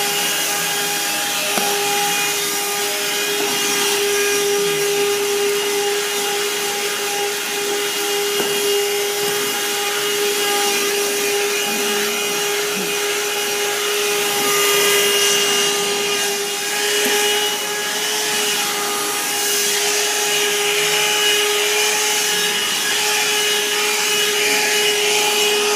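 Shark cordless 15.6-volt handheld vacuum running steadily, with a high motor whine over rushing air, while its brush attachment rubs over the steps.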